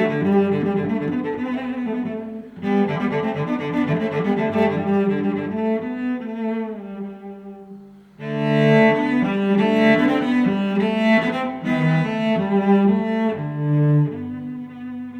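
Background music led by bowed low strings such as cello, playing sustained notes in rhythmic phrases that fade briefly about halfway through before coming back louder.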